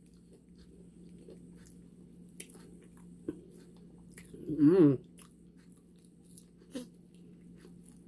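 Close-up chewing of crispy fried chicken, with scattered sharp crackles of the fried breading as pieces are torn and bitten. A little past the middle comes a short hummed "mm" of a voice, the loudest sound.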